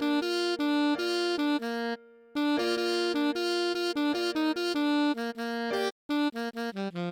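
Computer-generated alto saxophone sound playing a song melody one note at a time, in short notes with brief gaps. Near the end it breaks into a quick run of short notes that drops in pitch.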